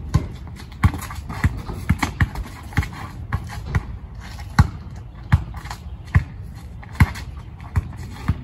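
A basketball dribbled on a concrete driveway: a run of sharp bounces, about one or two a second, at an uneven pace.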